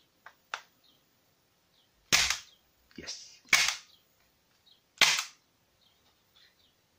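Three sharp cracks from a 3D-printed Colt 1911-style prop pistol's firing mechanism, about a second and a half apart, with a few small clicks of the action before them.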